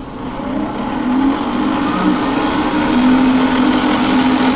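Drill-press-turned-mill spindle running at about 5,000 RPM while a 2 mm end mill cuts a slot in a hardened steel hex bolt head: a steady high whine over a wavering lower tone, getting louder over the first second or so.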